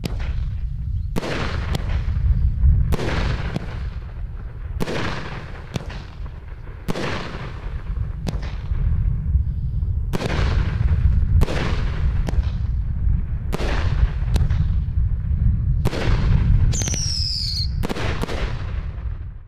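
A 12-shot 500-gram repeater cake firing: a string of sharp launch thumps and bangs from the shells breaking in the air, one every second or two. A brief falling whistle comes near the end, over a steady low rumble.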